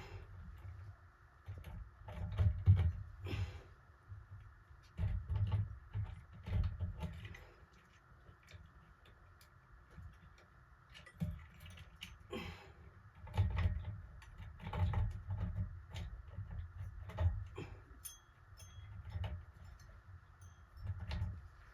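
Irregular clicks, light rattles and dull knocks of small parts and tools being handled during repair work on a ceiling fan's pull chain switch wiring, over a faint steady hum.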